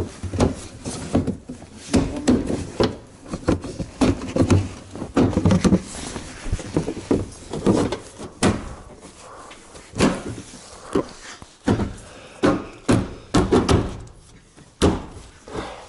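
Irregular knocks, clicks and rattles of a Nissan Bluebird's bumper and trim strip being handled and pushed against the car body and its clips.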